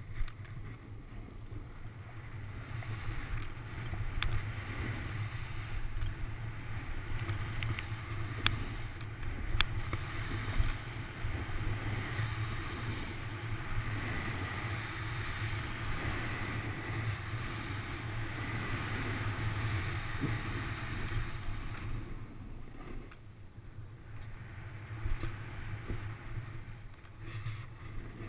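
Snowboard sliding down a ski slope, its base and edges scraping over hard, chopped snow, with wind rumbling on the helmet camera's microphone. A few sharp clicks come about nine seconds in, and the scraping eases for a couple of seconds near the end.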